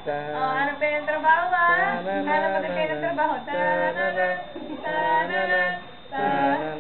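Music with singing: held, gliding sung notes over a steady instrumental backing.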